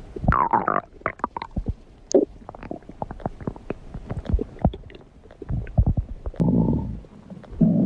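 Human stomach growling and gurgling: a run of squelching pops and gurgles. Just after the start comes a pitched gurgle that dips and rises, and a longer low rumble follows a little over six seconds in.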